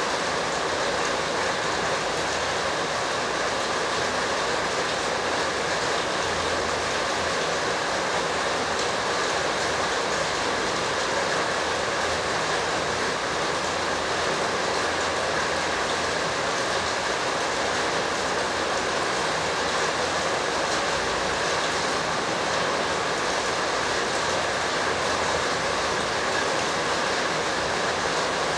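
A steady, unchanging rushing noise with no distinct sounds standing out from it.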